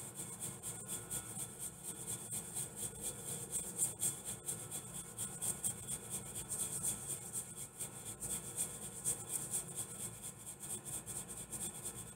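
Dry ground spices being swirled around a mixing bowl, the powder sliding and rustling against the bowl in a soft, uneven rasp as the homemade Cajun seasoning is mixed.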